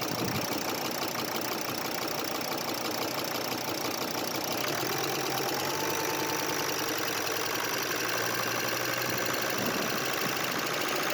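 Volkswagen Crafter 2.5 TDI (BJL) five-cylinder diesel engine running with the revs raised smoothly about halfway through, its worn hydraulic lifters chattering; at the higher revs the lifter noise eases slightly.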